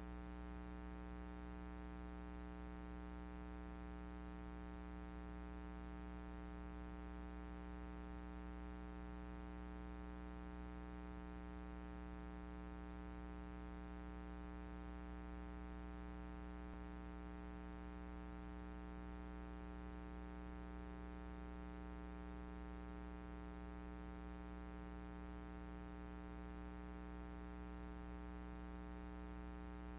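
A steady, unchanging electrical hum rich in overtones.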